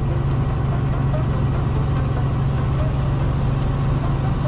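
Helicopter engine and rotor drone, a steady loud low hum with a fast flutter.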